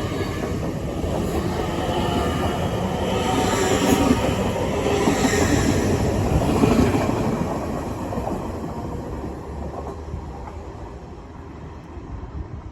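LNER high-speed passenger train pulling away from the platform, its running noise building to a peak about halfway through and then fading as it leaves.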